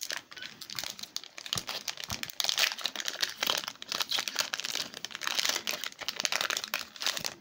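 Foil wrapper of a Pokémon trading-card booster pack crinkling and tearing as it is pulled open by hand, a dense run of rustles and sharp crackles.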